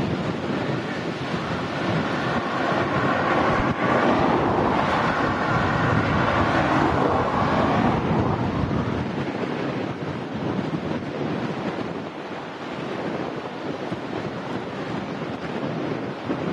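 Boeing 787-9 Dreamliner jet engines, with heavy wind buffeting the microphone. The engines swell to their loudest about two to eight seconds in, with a faint steady whine over the rush, then ease off while the wind noise carries on.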